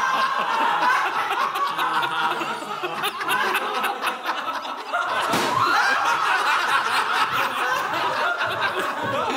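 A group of men and women laughing together in a laughter yoga session, several voices overlapping, with a brief dip about five seconds in.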